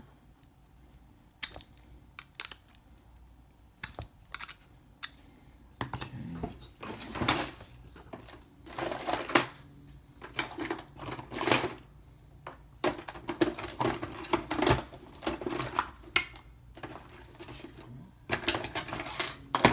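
Phillips screwdriver prying and scraping at the bottom plate of a steel US General padlock: scattered sharp metal clicks at first, then from about six seconds in a dense, irregular run of scrapes and knocks as the plate is worked at.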